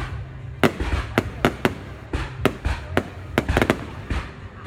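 Fireworks bursting overhead: a quick, irregular run of sharp bangs, about a dozen in under five seconds, some trailing a short crackling hiss, over a steady low rumble.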